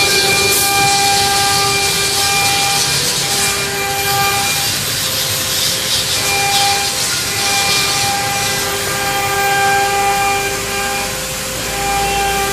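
Multi-spindle CNC router carving wood: a steady cutting hiss under a high spindle whine that fades and returns several times as the bits move through the work.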